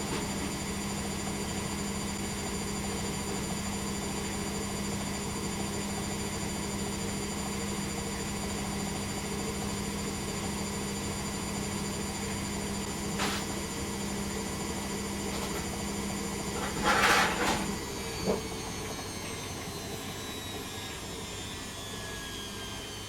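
Beko 6 kg, 1500-spin washing machine on a fast spin with a steady motor hum and a high whine. A thump comes at about 13 seconds and a louder clatter with a knock at about 17–18 seconds. After that the drive cuts and the whine falls steadily in pitch as the drum winds down, which is the spin ending.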